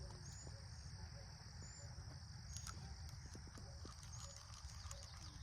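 Outdoor ambience: a steady, high insect drone runs throughout over a low rumble, with a few faint short chirps and light clicks.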